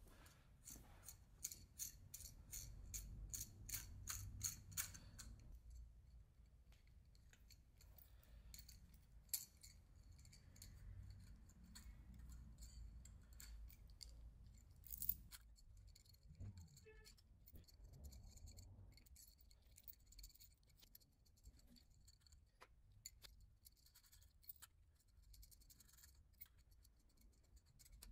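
A socket ratchet clicking in an even run of about three clicks a second for some four seconds, then scattered light metallic clicks and taps, as exhaust studs are wound into the cylinder head.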